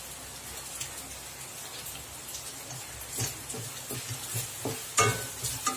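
Onion, tomato and capsicum masala sizzling gently in a frying pan, a fine steady crackle. A wooden spatula stirs the spice powders in, knocking and scraping against the pan a few times, most sharply about three and five seconds in.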